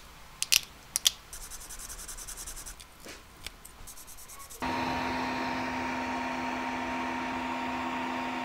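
Faint hand scraping and sanding on the small die-cast car's parts, with two sharp clicks early on. About halfway through, the steady hum of a resin 3D printer's fan and motor takes over, louder, with a low drone and a fainter higher whine held at constant pitch.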